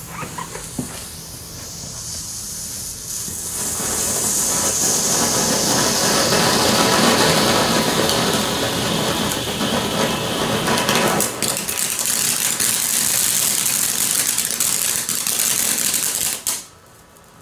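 A 'Fontastic' cat.1 fountain firework hissing as it sprays sparks, with scattered crackles. The hiss grows over the first few seconds, holds steady, then stops abruptly as the fountain burns out near the end.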